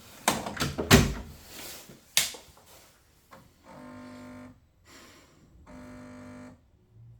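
A run of knocks and clatter from parts being handled during boiler work, then two steady electronic beeps, each just under a second long and about two seconds apart.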